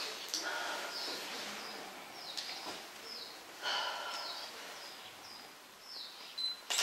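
Small birds chirping: short, high, falling chirps repeated roughly once a second, with a couple of sharp clicks near the end.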